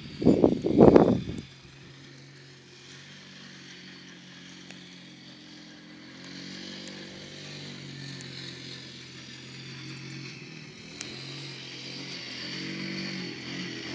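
Yamaha quad bike engine running steadily at a distance, growing louder over the second half as it comes nearer. A loud rumbling on the microphone fills the first second and a half.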